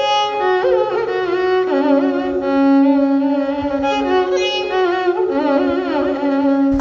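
Background music: a solo bowed string instrument, violin-like, playing a slow melody of long held notes joined by sliding ornaments.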